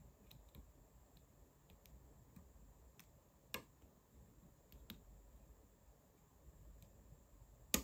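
Faint, scattered metallic clicks and ticks of a hook pick working the pin stack of a five-pin Vachette lock cylinder under clockwise tension. The sharpest click comes near the end, as the first pin sets.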